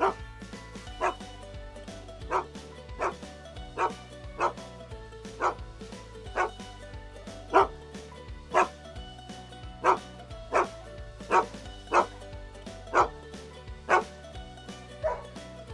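Music built from dog barks: short barks at changing pitches sounding about once a second over sustained backing chords.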